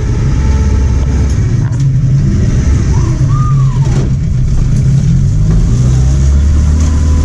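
Motorized river barge's engine running with a steady low drone. A brief tone rises and falls about three seconds in.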